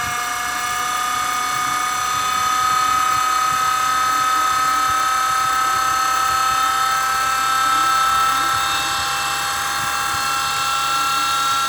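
Tiny 1/72-scale RC helicopter in flight: its small electric motor and rotor give a steady high whine that slowly rises in pitch.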